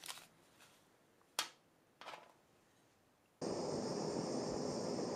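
A sharp click about a second and a half in, a fainter one half a second later, then about three and a half seconds in a gas blowtorch comes on with a sudden, steady hiss that keeps going.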